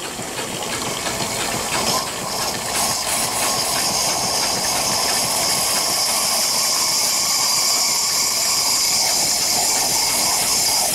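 Small steam engine running on live steam and hissing hard as it blows condensed water out of itself. The hiss builds over the first two seconds, then holds steady.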